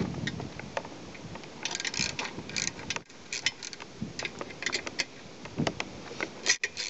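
Ratchet wrench clicking in short quick runs as bolts are turned out of an outboard jet unit's housing.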